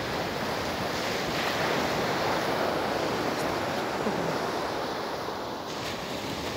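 Small ocean waves breaking and washing up over the sand in shallow surf, a steady rushing that swells about two seconds in and eases off toward the end.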